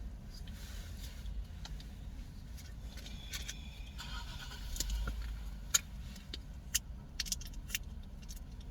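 Low steady rumble inside a car, with a brief rustle about four seconds in and scattered sharp clicks through the second half.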